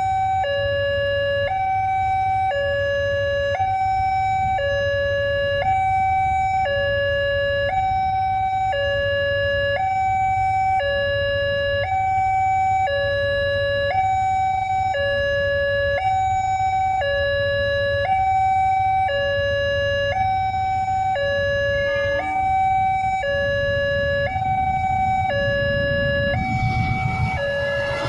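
Railway level-crossing warning siren sounding two alternating tones, high then low, about a second each, steady and loud while the barriers are down. Near the end the rumble of an approaching train's diesel locomotive builds up under it.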